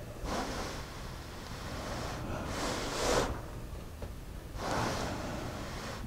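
A person breathing out through the nose three times, about two seconds apart, over a low steady hum.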